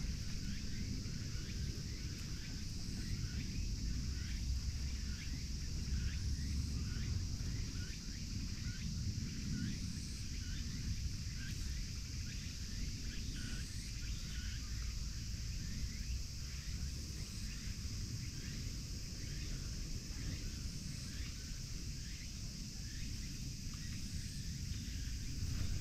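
Summer outdoor ambience: a steady high insect drone with many short, falling chirps repeating through it, over a constant low rumble.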